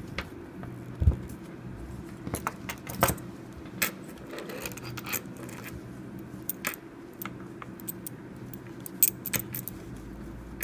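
Small metal clicks and clinks as a paracord dog collar with a steel buckle and a brass fid is handled, with a low knock about a second in, over a steady low hum.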